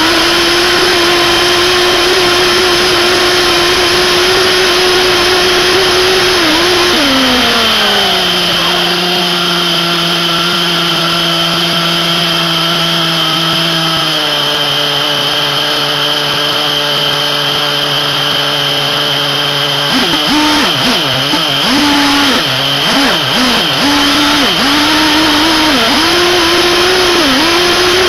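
Small two-stroke nitro glow engine (SH PT21-P3, 3.48 cc) of a 1/8-scale RC buggy running at high revs, heard close up from the car itself: a high steady whine that drops in pitch after about seven seconds and holds lower. For the last third the revs rise and fall again and again as the throttle is worked.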